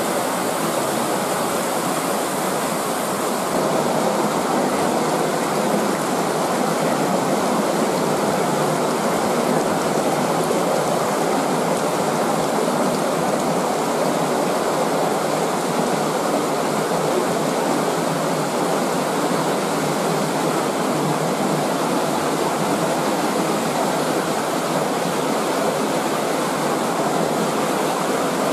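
A stream of water rushing steadily through a cave.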